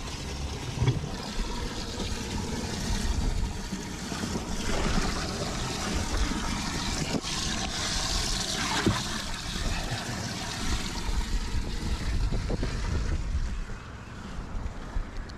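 Water splashing and trickling as a large largemouth bass is lowered over the side of a boat and released, with wind rumbling on the microphone.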